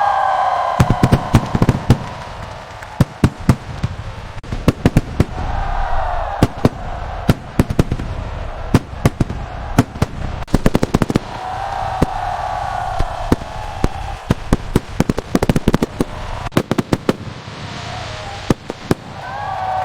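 Fireworks display: rapid, irregular sharp bangs and crackling pops throughout. A held pitched sound with several tones comes and goes about every six or seven seconds.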